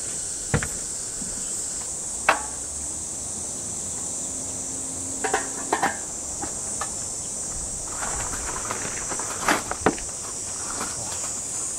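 Insects droning steadily in a high-pitched, continuous buzz, with scattered sharp knocks and clinks of camp cooking gear being handled and set up.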